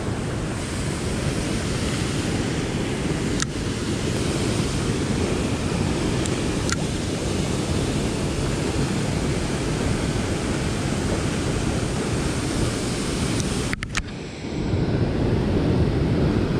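Steady rushing noise of flowing river water mixed with wind on the microphone, with a couple of faint clicks and a brief dropout near the end.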